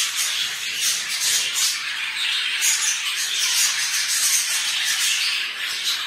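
A room full of caged budgerigars chattering and chirping together: a continuous, dense twittering of many overlapping short high calls.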